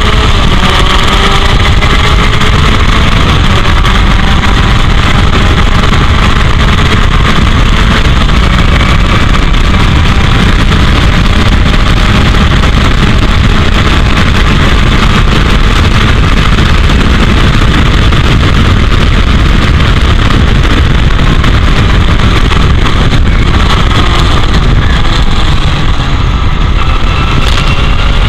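Heavy wind noise buffeting the camera, over the engine of a 1984 Royale S2 sports racer running at speed; the engine note climbs as the car accelerates near the start and again in the last few seconds.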